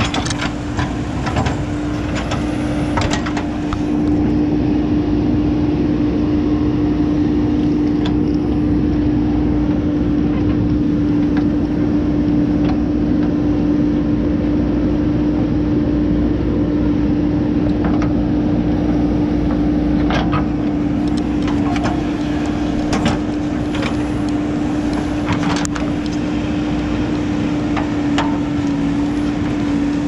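JCB backhoe loader's diesel engine running steadily under load with an even drone as the backhoe digs. A few short knocks and clatters come near the start and again in the second half.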